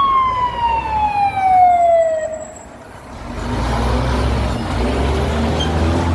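A fire tender's siren wail falls steadily in pitch and dies out about two and a half seconds in. The truck's heavy engine then runs with a low steady rumble.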